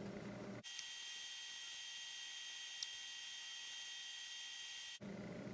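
Faint steady electrical hum and high whine made of several fixed tones. It switches on abruptly about half a second in and cuts off just as abruptly a second before the end, with one faint click in the middle.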